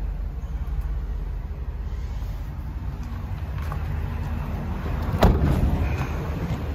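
A steady low rumble, then one loud slam about five seconds in: the cab door of a 2012 Ford E-350 cutaway truck being shut.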